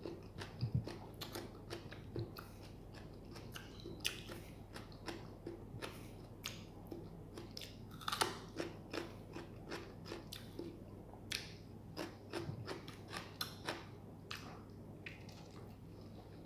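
A person chewing and biting food close to the microphone: soft, irregular mouth clicks and smacks.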